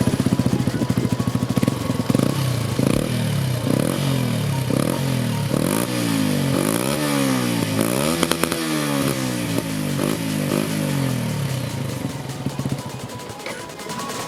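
Yamaha MT-125's single-cylinder four-stroke engine through an Akrapovic exhaust, revved in repeated throttle blips. The revs climb and drop about once a second, the blips come quicker and higher in the middle, and the engine settles to a steadier note near the end.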